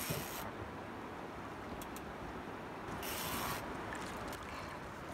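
Fishing reel being cranked as a white sturgeon is brought up beside the boat: a low, steady mechanical winding, with a brief hiss about three seconds in.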